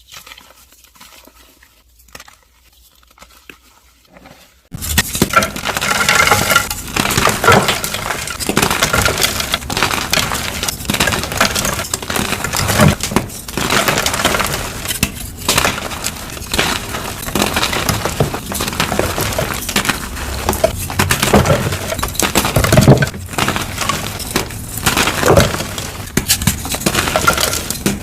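Dyed gym chalk blocks being crushed and crumbled, a dense crunchy crackling. It is faint for the first few seconds, then turns loud suddenly about five seconds in and keeps crunching steadily.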